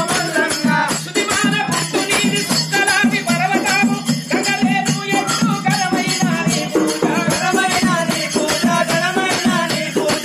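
Devotional folk music with fast, continuous rattling and jingling percussion, like shakers or bells, under a singing voice and a steady low drone.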